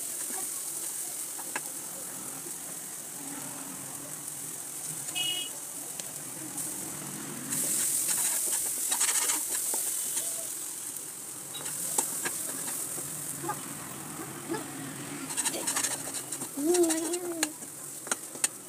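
A spatula stirring and scraping a thick mash around a pan as it sizzles while frying. The scraping comes in bouts over a steady hiss of frying.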